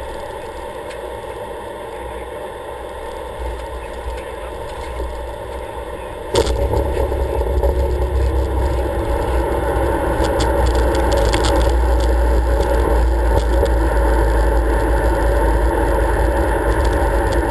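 Aircraft cockpit noise as the plane floats just above the runway, then a sharp thud about six seconds in as the wheels touch down, followed by a much louder, steady low rumble of the landing roll on the runway.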